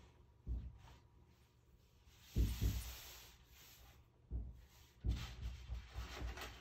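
Hollow-core door thumping in its frame as hands press and smooth vinyl contact paper onto it, a series of low bumps, with a rustling swish of the paper about two and a half seconds in.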